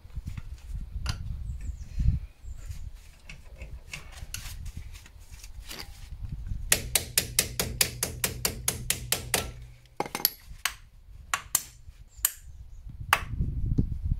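Hammer-like tapping on the dust cap over an Opel Astra's front wheel hub, to knock it off and reach the hub nut. A few single blows come first, then a fast even run of about five blows a second for some three seconds from around the middle, then several separate strikes.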